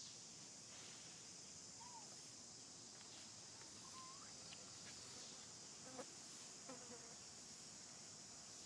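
Faint, steady high-pitched drone of insects, with a few brief faint squeaks and a couple of soft clicks near the middle.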